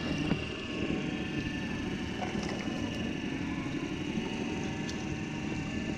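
Boat engine running steadily, a constant low drone with a faint steady whine above it and a few light ticks.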